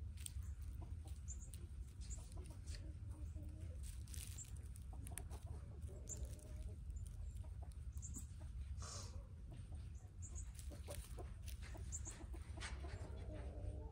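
Chickens clucking low a few times while foraging, with scattered brief high chirps and a steady low rumble underneath.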